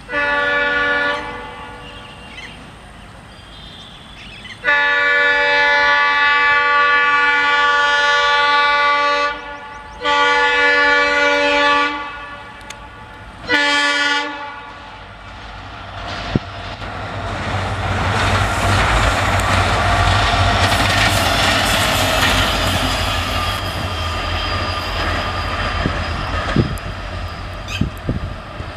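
Indian Railways EMD diesel locomotive sounding its air horn four times: a short blast, a long one of about four seconds, a two-second one and a short one. The train then approaches and passes, its engine rumbling and its wheels clicking over the rail joints, loudest about twenty seconds in.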